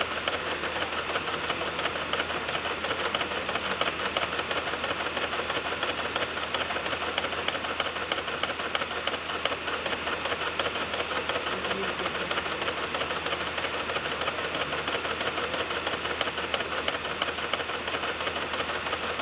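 Optical DVD drive reading a burned disc: rapid, even clicking of the laser head seeking over the steady whir of the spinning disc.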